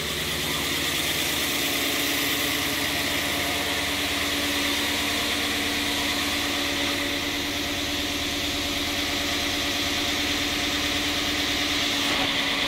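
Freshly rebuilt, cammed 5.7-litre Hemi V8 of a Dodge Charger R/T idling steadily just after its first start, at a fast idle of about 1,000 rpm.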